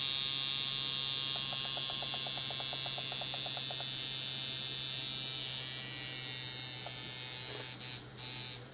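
Coil tattoo machine with small coils buzzing steadily at about 126 cycles a second, hitting hard at 8 volts: too much power for it, in the owner's view. The buzz dips out twice near the end.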